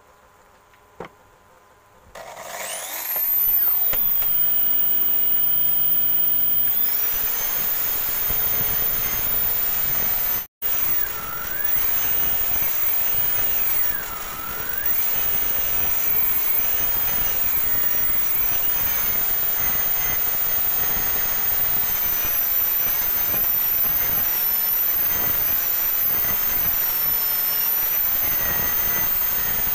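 A high-speed electric power tool is switched on about two seconds in and spins up to a steady high whine. From the middle on, its pitch wavers up and down as the tool is pressed into the wood and eased off.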